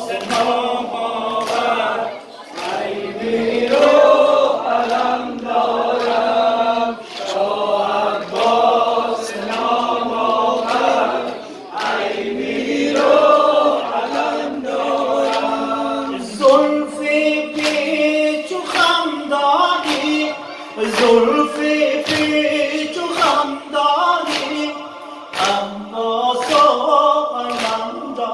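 A crowd of men chanting a Persian Muharram nowheh (mourning lament) in unison with a lead singer, unaccompanied, over a steady beat of hand slaps from the mourners' chest-beating (sineh-zani), about one a second.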